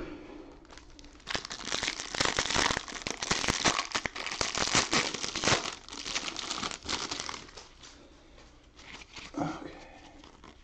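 Clear plastic wrapper of a pack of baseball cards crinkling and tearing as it is pulled off. The crackling is dense for about five seconds, then dies down to quieter handling.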